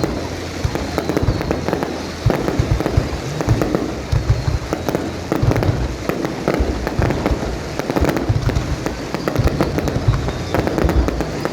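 Fireworks display: a dense, continuous run of bangs and deep booms going off in quick succession.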